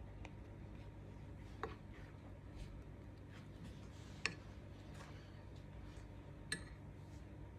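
Faint, low steady hum with three light clicks, the loudest about four seconds in: a spoon knocking against the ceramic bowl of melted chocolate as butter cookies are dipped.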